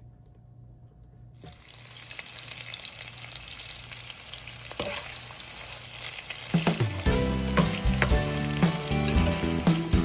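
Diced red onions hitting hot oil in a nonstick pan: a sizzle starts suddenly about a second and a half in and grows louder as they are sautéed and stirred, with a few sharp taps of the utensil on the pan. Background music comes in about two-thirds of the way through.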